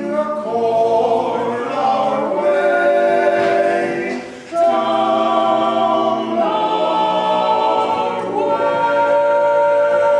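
Male barbershop quartet singing a cappella in four-part close harmony: held chords that shift every second or two, a short break for breath about four and a half seconds in, then a long sustained chord near the end.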